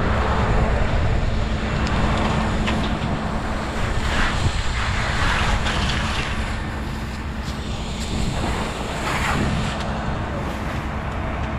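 A fire engine's motor and pump run steadily, giving a low rumble with a constant hum. A few short hissing rushes sit over it about four, six and nine seconds in.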